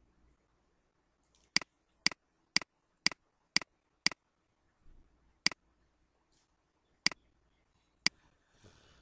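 Computer mouse button clicking: nine sharp clicks, each a quick press-and-release double tick, the first six about half a second apart, then three more spaced further out.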